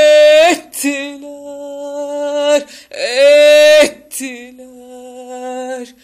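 A woman's unaccompanied singing voice holding four long, drawn-out notes one after another. The loudest are at the very start and about three seconds in.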